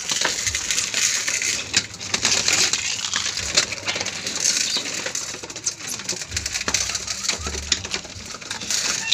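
Racing pigeons crowding onto a metal feed trough and pecking grain: a dense run of quick clicks and rattles of beaks and seed on the metal, with wing flutters as birds jostle in.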